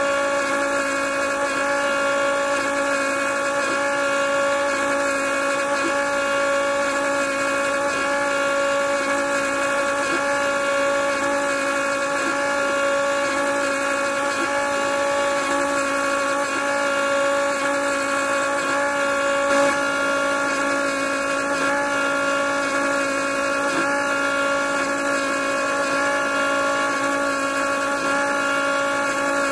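Small DC motor of a homemade juicer running steadily with a constant whine while citrus segments are fed in. There is one brief knock about two-thirds of the way through.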